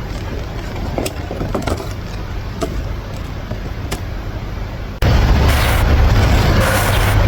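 Workshop noise: a steady low hum with a few sharp metallic clicks, then, about five seconds in, a sudden switch to much louder, steady rumbling noise.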